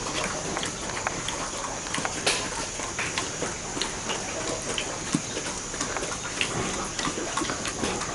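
A pig eating dry meal off a concrete floor: irregular small clicks and taps as it feeds, over a steady high hiss.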